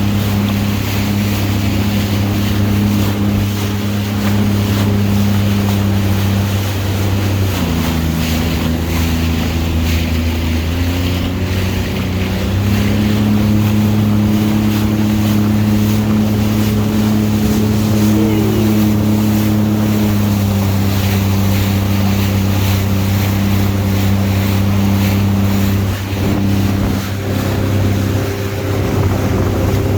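Jet ski engine running steadily at speed, its pitch dropping about seven seconds in, climbing again around twelve seconds and dropping once more near twenty seconds, with wind and water rushing past.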